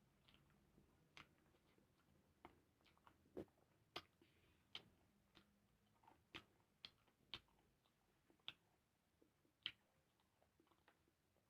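Faint eating sounds: irregular sharp mouth clicks and smacks of chewing, roughly one every half second to a second.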